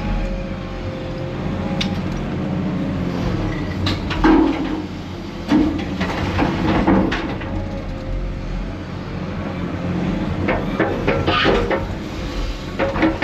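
Diesel engine of a Cat 330F excavator running steadily, with a steady high tone over it, while chunks of concrete rubble knock and clatter as they are dropped into a dumper's bed. The loudest knocks come about four and five and a half seconds in, with a cluster near eleven seconds.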